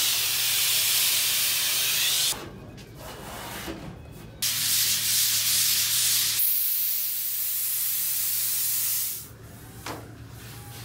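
Hand sanding of a foam surfboard blank: an abrasive pad rubbed along the rail and over the deck, giving a loud hissing scrape. It comes in several stretches that start and stop abruptly, and dies away near the end.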